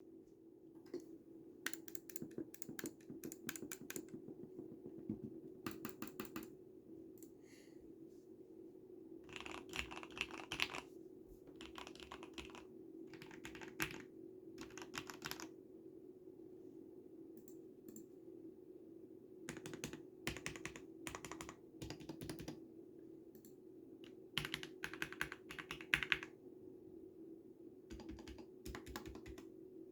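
Mechanical keyboard with lubed Cherry MX Red linear switches and sound-dampening mods being typed on in quick runs of keystrokes, with short pauses between the runs.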